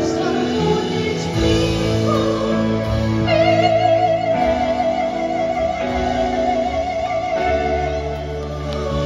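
A woman singing live into a microphone, accompanied by electric guitar. About three seconds in she holds one long high note that wavers with vibrato for about four seconds.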